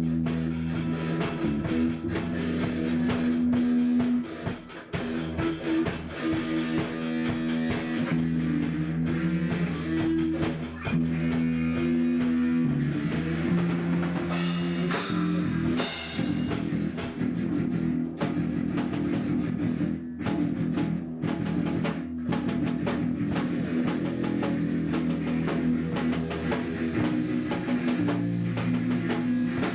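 Rock music: a drum kit keeping a steady beat over guitar and sustained low notes.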